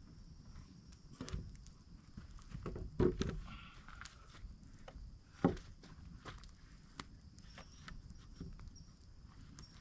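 Irregular footsteps and scattered knocks, with the loudest thuds about three and five and a half seconds in.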